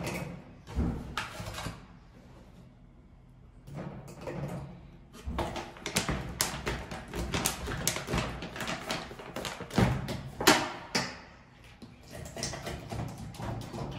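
Rustling, clicks and knocks of a plastic protein powder pouch and a plastic shaker cup being handled and filled on a counter, with a short lull about two seconds in.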